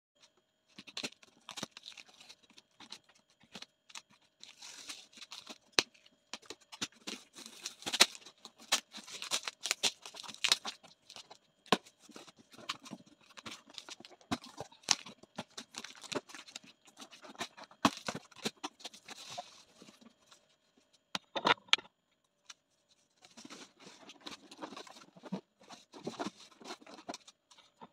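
Packing tape being ripped off a cardboard shipping box and the cardboard flaps pulled open: irregular tearing, crinkling and sharp clicks, with a short lull about two-thirds of the way through.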